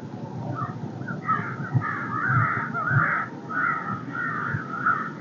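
A group of American crows cawing, several birds calling over one another in a continuous run of harsh caws from about a second in. Wind gusts thump against the microphone underneath.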